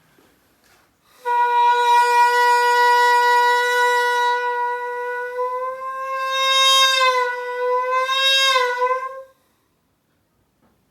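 Piri, the Korean double-reed bamboo oboe, playing one long held note that starts about a second in, creeps slightly up in pitch, bends and wavers near the end, and stops after about nine seconds.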